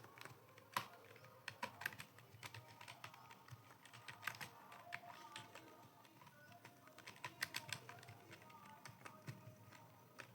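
Computer keyboard being typed on: faint, irregular runs of key clicks, several a second, with short pauses between bursts.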